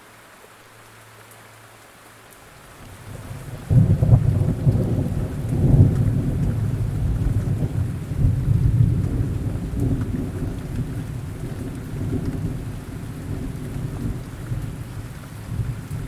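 Steady rain falling, then about three seconds in a low rolling rumble of thunder builds, breaks loud, and keeps rumbling over the rain, slowly easing off.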